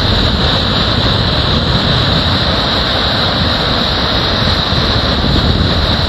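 Muddy flash-flood water rushing past concrete bridge piers: a loud, steady rushing noise with a heavy low rumble.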